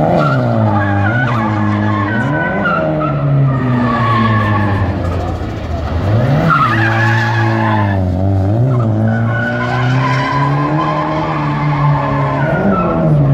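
A drift car's engine revving hard, its pitch blipping up and falling back several times between steadier stretches, with tyres squealing as the car slides.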